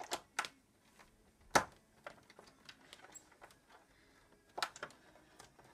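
Scattered clicks and taps of a screwdriver working at the screws of a plastic burglar-alarm cover, with one sharper knock about a second and a half in.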